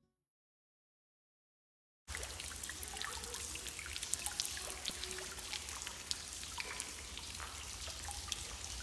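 Silence for about two seconds, then a shallow stream of water trickling over gravel and stones, a steady wash dotted with many small drips and splashes, with a low rumble underneath.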